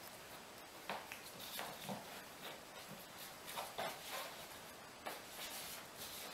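Faint, irregular light taps and scratchy shuffles: a German Spitz puppy's paws and claws on a laminate floor, mixed with a person's sandalled steps.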